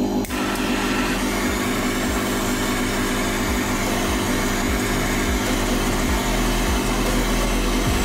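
Handheld gas torch burning steadily as its blue flame heats an engraved metal knife scale to a red glow: a steady rushing noise with a low hum beneath it.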